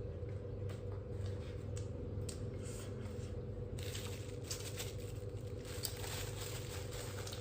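Food being handled and torn apart by hand, with scratchy rustling and crackling that grows denser about four seconds in, over a steady low hum.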